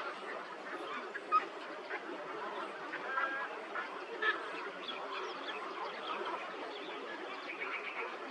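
Dense chorus of many birds calling at once, short overlapping calls with no break, typical of a waterbird colony in flooded forest; a couple of single calls stand out louder.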